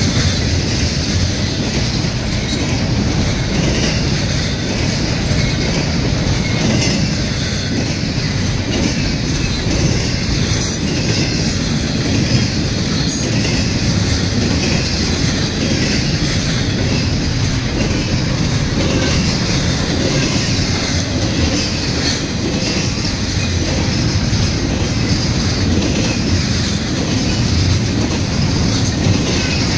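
Freight train cars rolling past, a steady rumble of steel wheels on rail with clickety-clack over the rail joints.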